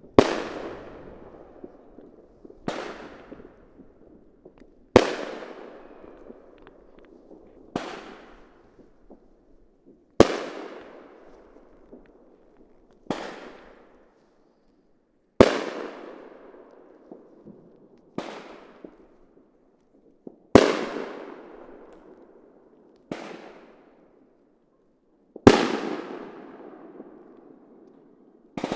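Fireworks going off: a sharp bang about every two and a half seconds, each followed by a long fading echo, with louder and softer bangs taking turns.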